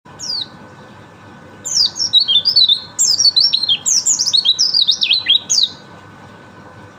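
A white-eye (pleci) singing: one short high downslurred note, then a rapid tumbling run of high, quickly falling whistled notes lasting about four seconds before it stops.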